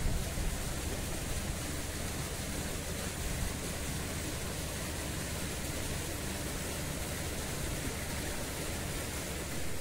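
Steady even hiss with a low, unsteady rumble underneath, typical of wind on a phone's microphone outdoors. No distinct events.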